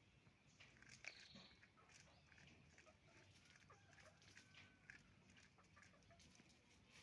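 Chickens clucking faintly: many short, scattered calls from a flock of hens, with a brief higher-pitched call about a second in.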